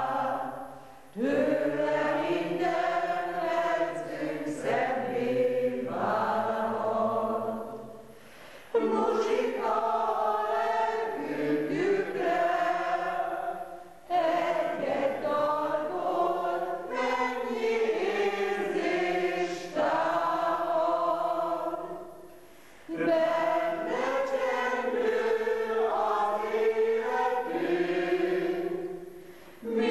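Mixed choir of mostly women's voices singing a song in phrases, each phrase dying away into a brief pause before the next begins, about every six to eight seconds.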